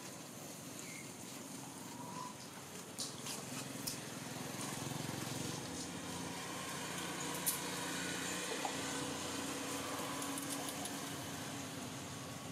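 A motor vehicle passing, its low engine hum growing louder about four seconds in and easing off near the end, with a few faint clicks.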